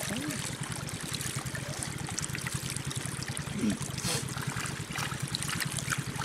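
Water running steadily and trickling through a narrow channel cut in a mud bank, beside a bamboo slat fish trap.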